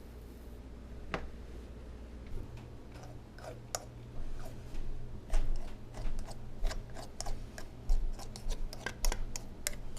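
Light, irregular clicks and taps from hands working on a pie, sparse at first and coming faster and louder in the second half, over a steady low hum.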